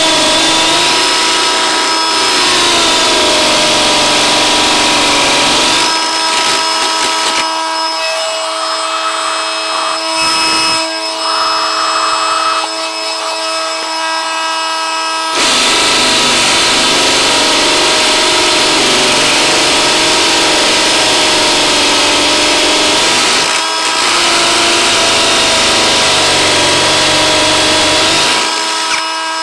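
Ryobi One+ P1813 brushless hammer drill boring into a concrete block with a nearly worn-out masonry bit, running hard under load. About six seconds in, the bit is drawn partly out of the hole and the sound thins and drops for roughly nine seconds. The drill then bears down into the block again and runs loud until just before the end.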